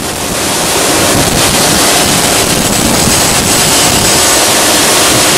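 Heavy-duty shafted screw compactor running, its spiral working a car tire along the steel trough: a loud, steady mechanical noise that builds over the first second and then holds.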